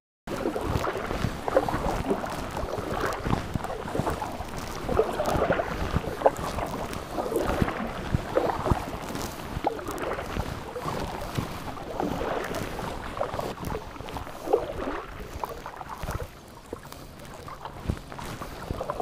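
Kayak paddle strokes: the blades dipping and splashing in lake water over and over in an uneven rhythm, with dripping and small knocks, easing off near the end.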